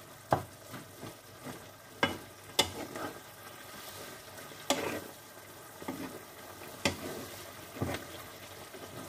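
Wooden spatula stirring chicken and vegetables in a nonstick pan, knocking and scraping against the pan at irregular moments about once a second, over a faint steady sizzle of frying.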